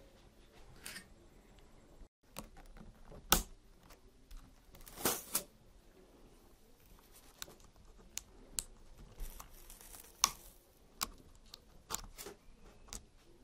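Small plastic clicks and scrapes of fingers prying a MacBook keycap off its scissor-type key clip. There is a sharp click about three seconds in and a short scraping rattle around five seconds, with scattered lighter clicks after.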